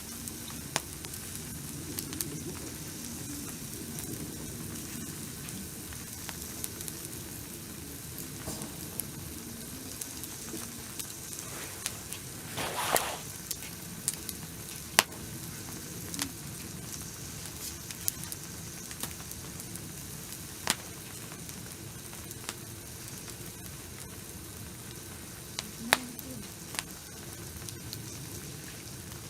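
Steady sizzling hiss from a campfire barbecue, with scattered sharp pops and crackles and one louder burst of hissing about halfway through.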